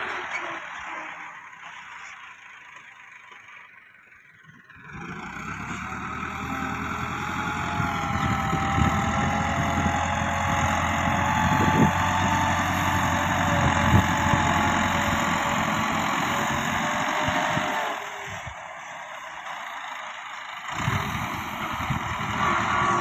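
Massey Ferguson 375 tractor's four-cylinder diesel engine working under load as it pushes soil with a front blade. The engine is quiet at first, comes in loud about five seconds in with its pitch rising and falling, drops back for a few seconds near the end, then comes up again.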